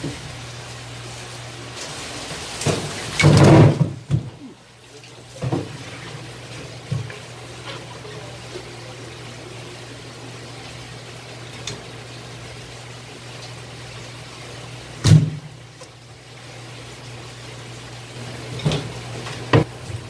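A large yellowtail being handled and turned over on a wet cutting board: a few wet knocks and slaps over a steady low hum. The loudest, lasting about a second, comes some three seconds in, and another comes at about fifteen seconds.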